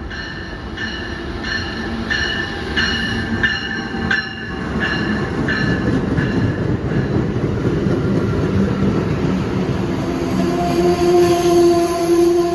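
Amtrak train pulling into a station: the locomotive's bell rings about one and a half times a second for the first seven seconds or so and then stops, over the rumble of the train rolling in. Near the end a steady hum comes in.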